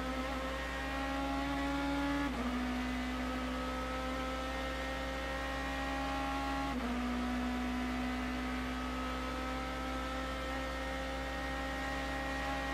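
BMW M3 GT race car's V8 engine at full throttle, its revs climbing steadily in the high gears. Two quick upshifts drop the pitch, about two and seven seconds in.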